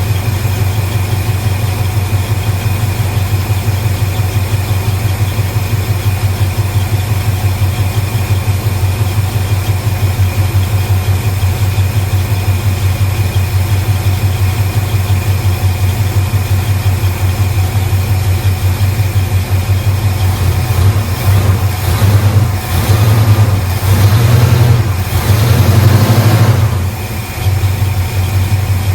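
1975 Ford F-250's carbureted engine idling cold after carburetor work, with a steady, even beat. About three-quarters of the way through it is revved up a few times, then drops back to idle.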